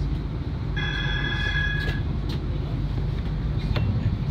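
Tram running, heard from the driver's cab: a steady low rumble of motors and wheels on rail. About a second in, a high-pitched tone sounds for just over a second and stops suddenly.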